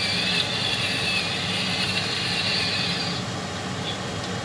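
Pork simmering in a wok as it is stirred, under a steady hum, with a higher hiss that stops about three seconds in.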